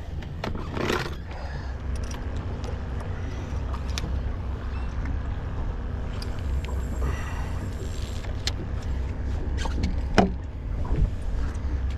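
Wind rumbling steadily on the microphone outdoors by the water, with a few faint clicks.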